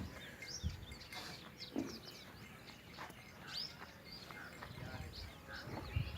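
Small birds chirping over and over in short, quick calls, with a couple of low thumps, one shortly after the start and one near the end.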